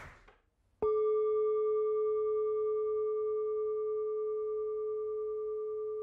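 The last of the applause dies away, then a singing bowl is struck once about a second in and rings on as one steady tone with fainter higher overtones, slowly fading.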